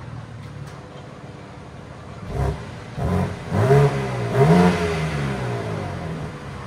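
2023 BMW M4 Competition's 3.0-litre twin-turbo inline-six on its stock exhaust with the valves closed, idling and then blipped: several quick revs from about two and a half seconds in, each rising and falling in pitch, the last two the longest, before it settles back to idle.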